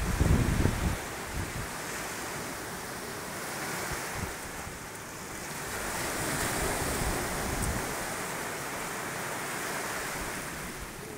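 Ocean surf washing in and breaking on the shore, a steady rush that swells and eases. Wind buffets the phone's microphone, loudest in the first second.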